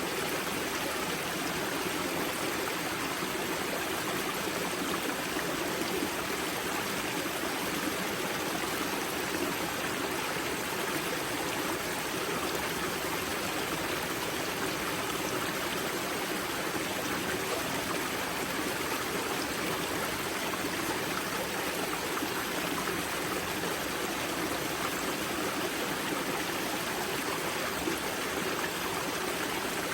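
Spring-fed mountain stream at its source, water rushing and splashing over rocks in a steady, unbroken wash.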